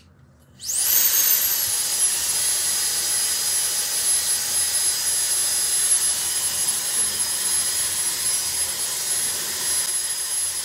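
Hair dryer switched on less than a second in: a sudden rush of blowing air, with a high motor whine that shoots up, dips slightly and settles into a steady high whine as the dryer runs continuously.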